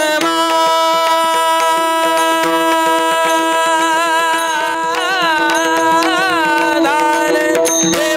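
Devotional Marathi abhang music: a steady held drone chord, with a male voice singing ornamented, wavering phrases from about four and a half seconds in.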